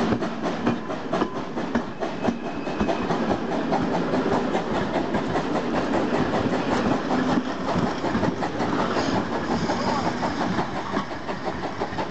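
Passenger coaches of a steam-hauled train rolling past close by, their wheels clicking and knocking rapidly and steadily over the rail joints.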